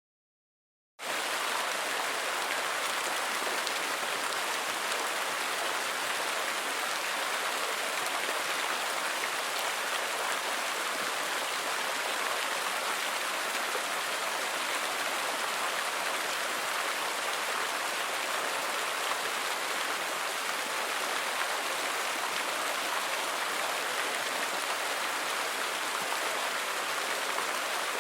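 Outdoor water fountain with many jets splashing steadily: a dense, even rush of falling water that starts abruptly about a second in.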